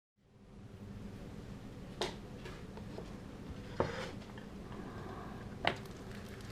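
Three sharp clicks and light taps from handling small resin parts on alligator-clip skewers, over a steady low hum.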